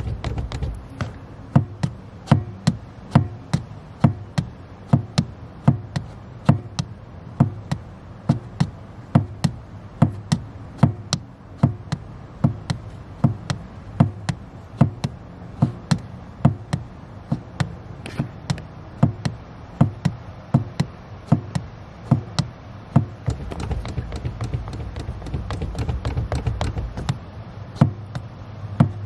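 A slippered foot pumping a car's accelerator pedal, making sharp, even taps and knocks about two a second. A low steady hum runs underneath and gets heavier for a few seconds near the end.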